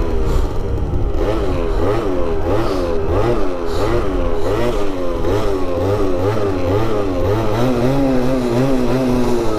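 Small scooter engine revving up and down over and over, about twice a second, then holding a steadier pitch for a couple of seconds near the end.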